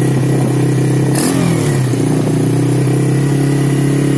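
Avantis 125 cc quad bike's single-cylinder four-stroke engine idling steadily in neutral, with a short click about a second in and a brief waver in the engine note after it.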